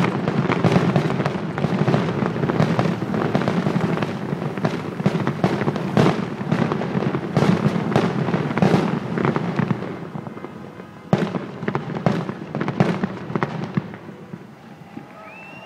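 Fireworks display: a dense, continuous barrage of crackles and bangs over a low rumble, thinning after about ten seconds to a few last separate bangs and then fading away.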